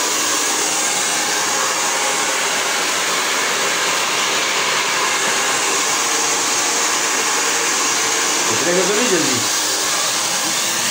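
Hair dryer running steadily, an even whooshing rush of air with a high hiss on top. A voice is heard briefly near the end.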